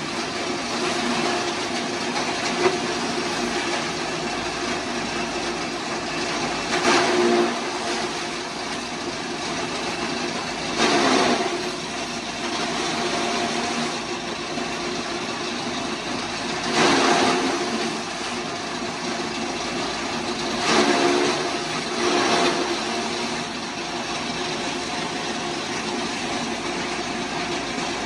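A small engine running steadily, with a louder burst of noise lasting about a second every few seconds, five times in all.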